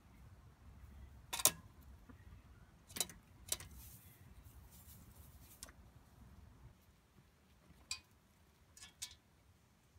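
Hens pecking feed from the metal trough of a Grandpa's Feeder treadle feeder: a handful of sharp clicks at irregular intervals, two close together near the end.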